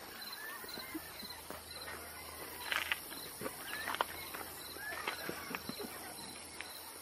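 Quiet rural outdoor ambience: birds chirping now and then over a faint, evenly pulsing insect chirr, with a few faint clicks.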